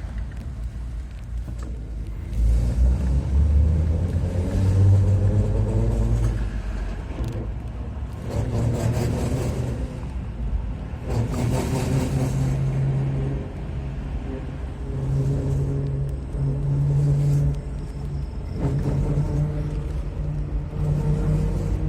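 Car running with a low rumble and a pitched hum that swells and shifts in pitch several times, recorded as an abnormal noise.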